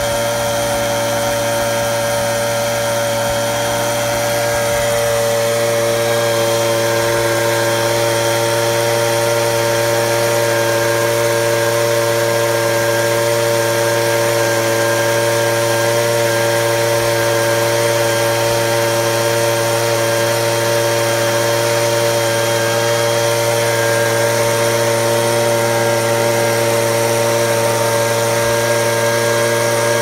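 Handheld two-stroke gas leaf blower running steadily at speed, its airflow pointed at the calves' coats, growing slightly louder about five seconds in.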